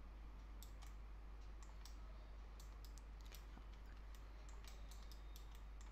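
Faint, irregular clicks of a computer keyboard and mouse starting about half a second in, over a low steady hum.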